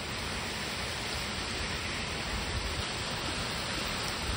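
Heavy rain from a hurricane's outer rain band pouring steadily onto tree foliage and a grass lawn, an even hiss.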